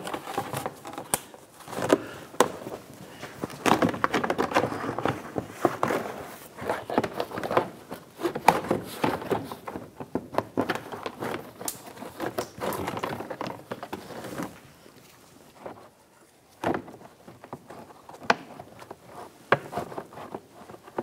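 Plastic front fender liner of a Volkswagen GTI being slid and pushed into place: irregular rubbing, rustling and light knocks and clicks of stiff plastic, easing off briefly about fifteen seconds in.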